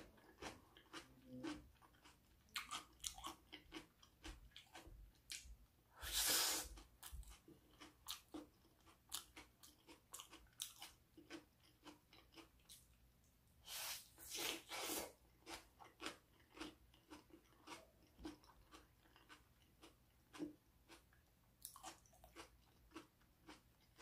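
Close-up chewing and crunching of a raw bell pepper cup stuffed with mashed vegetables, with many small wet crackles and louder crunching bites about six seconds in and again around fourteen to fifteen seconds in.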